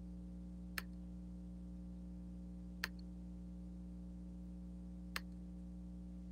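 Three sharp computer mouse clicks, about two seconds apart, over a steady low electrical hum.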